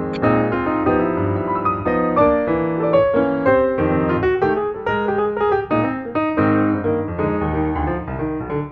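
Background piano music, notes and chords played continuously.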